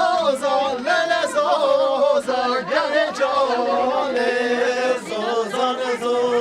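Voices singing a halay folk dance song together in a sustained, chant-like tune.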